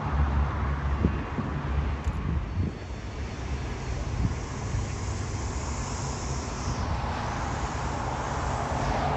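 Jet airliner engines running at the airport: a low, steady rumble, heavier in the first couple of seconds, with a faint high whine from about a third of the way in that stops a couple of seconds before the end.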